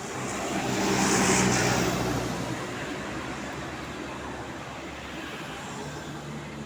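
A road vehicle driving past close by: engine hum and tyre noise swell to their loudest a little over a second in, then fade as it moves away.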